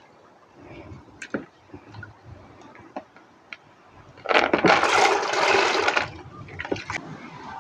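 Dry maize kernels being washed by hand in a plastic tub: a few small clicks of grains and water at first, then about two seconds of rushing, splashing water as the tub is tipped and the washing water poured off.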